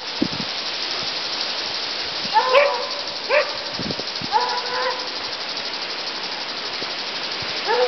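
A dog barking three times, short calls about a second apart, over a steady hiss.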